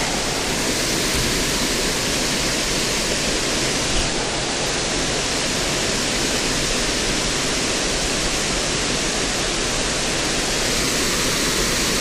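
Small waterfall pouring over rock ledges into a creek pool: a steady rushing of water.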